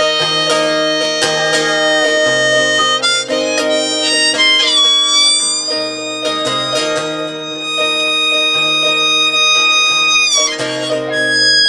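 Harmonica solo over guitar accompaniment: bent, wailing notes, with a note sliding up about halfway through and held for several seconds.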